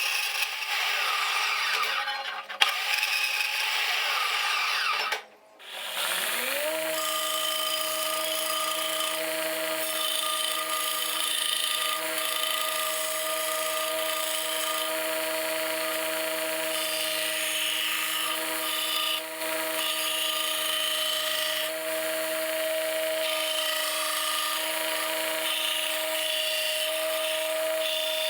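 Knife-making shop work: a few seconds of noisy hand or machine work on the blade stock, then an electric power tool's motor spins up with a quickly rising whine and runs at a steady pitch.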